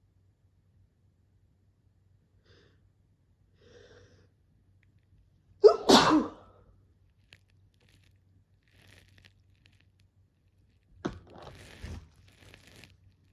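A person sneezing once, loudly, a little under halfway through. Near the end comes a shorter, quieter sharp sound followed by some noisy rustling.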